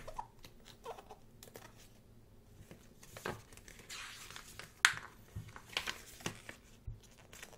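Pages of a thick photobook being turned by hand: paper rustling and swishing, with scattered light clicks and one sharp snap of a page about halfway through.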